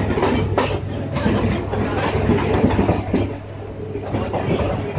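Local train running through a station yard, heard from inside the coach: a steady rumble of wheels on rails with scattered clicks over joints and points, dropping a little in loudness about three seconds in.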